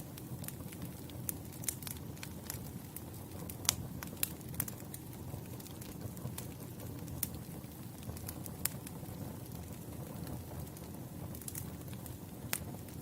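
Campfire burning: irregular sharp crackles and pops, a few louder ones around four seconds in, over a low steady rumble of the flames.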